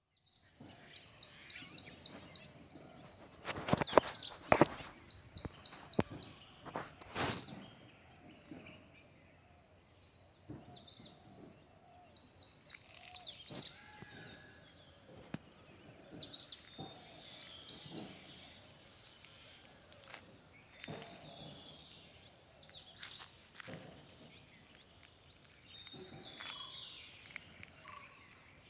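Many small birds chirping in quick, overlapping runs of high chirps over a steady high hiss. There are a few sharp clicks, the loudest near 4 seconds in and again around 7 seconds.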